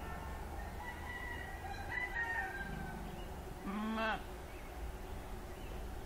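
Animal calls in the background: a faint, drawn-out call over the first two seconds or so, then a short, louder call about four seconds in.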